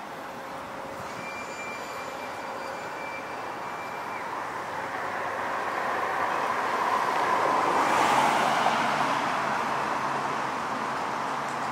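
Passing vehicle noise: a steady rushing sound that swells to a peak about eight seconds in and then fades, with faint thin whistling tones for a few seconds near the start.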